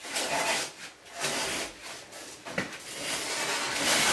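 Repeated rubbing and scraping noises in several swells, each about half a second to a second long, with a sharp click about two and a half seconds in.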